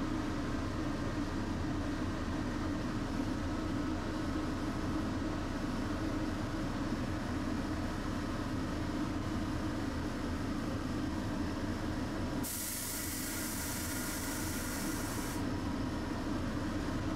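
Tosaden streetcar running with a steady low rumble. About two thirds in, a sharp hiss of escaping air lasts about three seconds and cuts off abruptly.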